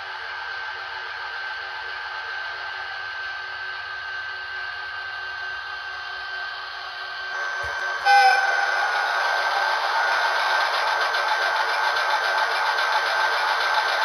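HO-scale model electric locomotive running slowly on KATO Unitrack: a steady motor whine over rolling wheel noise. It becomes louder about eight seconds in.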